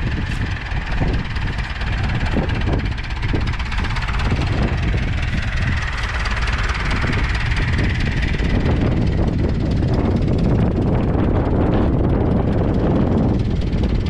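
Small vintage International tractor engine running steadily under load as it pulls a two-furrow mounted plough, growing louder from about nine seconds in as it draws close.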